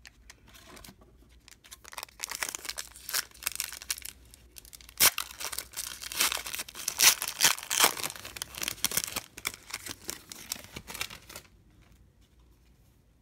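A foil trading-card pack wrapper being torn open and crinkled, with its cards pulled out: an irregular crackling rustle, loudest in the middle, that stops a little before the end.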